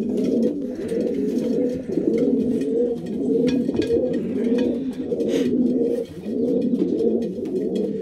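Several racing pigeon cocks cooing at once, their calls overlapping into a steady chorus. These are widowhood cocks calling to their hens, worked up and keen before being basketed for a race.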